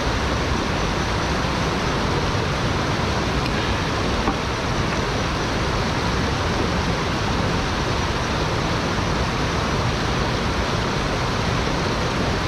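Shallow stream rushing over rocks in small rapids: a steady, even rush of water.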